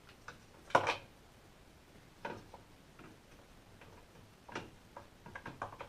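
Light plastic clicks and knocks at irregular intervals, with one louder knock about a second in and a quick cluster of clicks near the end: washing-machine agitator parts and new plastic agitator dogs being handled and seated.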